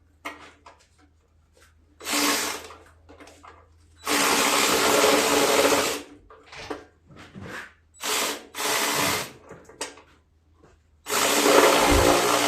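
A power tool run in four short bursts, each one to two seconds long, loosening a bolt on a garden tractor's starter-generator mount to slacken the belt, with clicks of handling in between.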